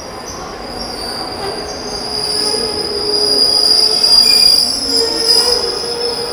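Indian Railways sleeper coaches rolling past close along a platform, their steel wheels squealing against the rails in a steady high-pitched screech. It grows louder from about two seconds in and is loudest around four seconds.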